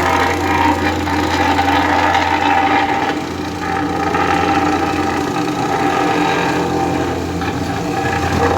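Heavy asphalt-paving machinery running: a steady low engine drone under a rougher, noisy layer of mechanical scraping and rattle.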